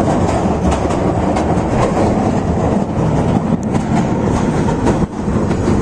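London Underground train running, heard from inside a crowded carriage: a loud steady rumble of the wheels on the track, with scattered clicks over it.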